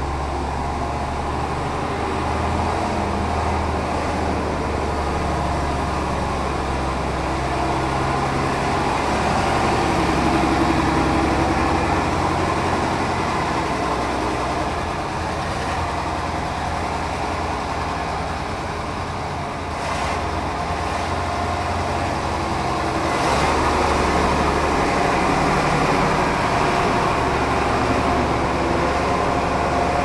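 Mercedes-Benz O302 coach's rear-mounted diesel engine idling steadily, with no revving; its mechanics are described as in perfect condition.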